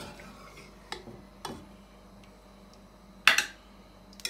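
A metal slotted spoon clinking and knocking against a pot and a glass serving bowl as cheese dumplings are ladled out of syrup, a few separate knocks with the loudest about three seconds in.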